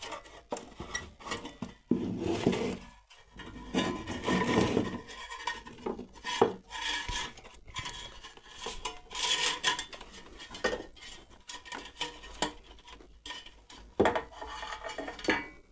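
Sheet-metal radio case being pulled apart and handled: irregular metallic scrapes, clinks and knocks, with louder clatters a couple of seconds in and again around the middle.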